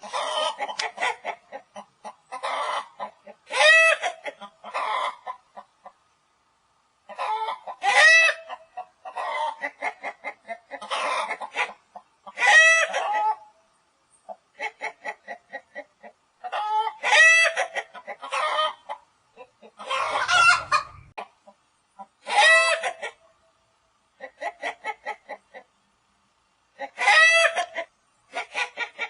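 Chicken clucking in runs of short, quick clucks. Every few seconds a louder, drawn-out squawk stands out from the clucks.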